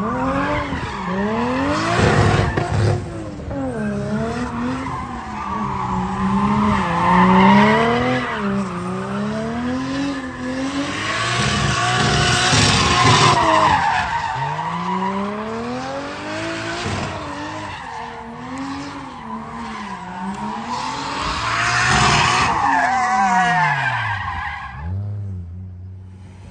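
Drift car engine revving up and down again and again as the driver works the throttle, with the rear tires squealing and skidding through a smoking slide. Near the end the revs fall away to a low steady note.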